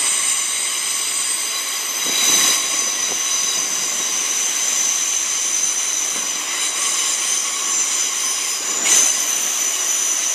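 Heathrow Express Class 332 electric multiple units moving out of the station: a steady, high-pitched whine of several tones held together over running noise. It swells briefly about two seconds in and again near nine seconds.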